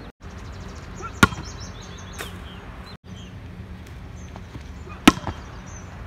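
Two sharp slaps of a hand striking a volleyball on jump serves, one about a second in and a louder one near the end, over a steady background hiss.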